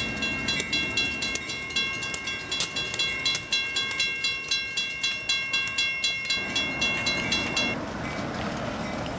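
Railroad crossing bell clanging in rapid regular strokes, nearly three a second, until it cuts off abruptly near the end. Underneath is the rumble of a passing train, which grows louder shortly before the bell stops.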